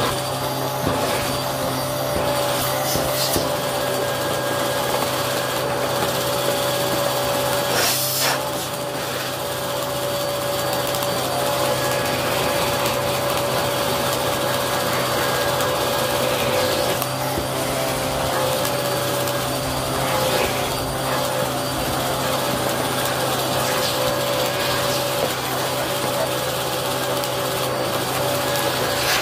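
Vacuum cleaner running steadily with a constant hum, its nozzle pushed over carpet. A few brief crackles sound as bits of debris are sucked up.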